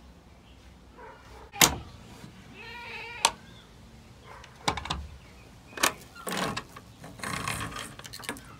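Goats bleating a couple of times, among several sharp knocks.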